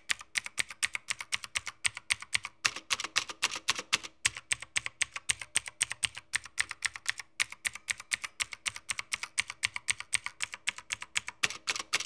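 Typing on a Havit HV-KB389L mechanical keyboard with tactile clicky blue switches, which behave like Cherry MX Blues: a rapid, steady run of sharp key clicks, several a second, with a few short breaks.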